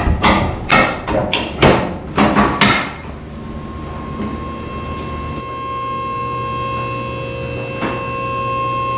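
A quick series of sharp knocks, about three a second, stopping about three seconds in. Then background music with steady held notes.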